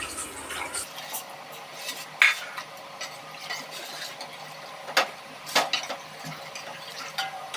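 A steel ladle stirring buttermilk and gram flour in a stainless steel pot, with sharp clinks of the ladle against the pot about two seconds in and twice around five seconds in. The mixture is kept stirred as it heats so the buttermilk does not curdle.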